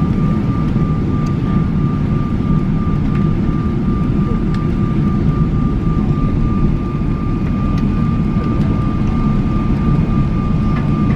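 Airliner cabin noise on the ground after landing: a steady, dense rumble of engines and air system with a constant thin whine held throughout.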